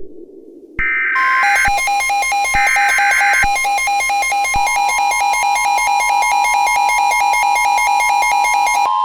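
Mock Emergency Alert System activation. Two harsh bursts of digital SAME header data come about a second apart. From about a second in, a rapidly pulsing alarm tone sounds under them. A steady higher tone joins it about halfway through, and both cut off just before the end.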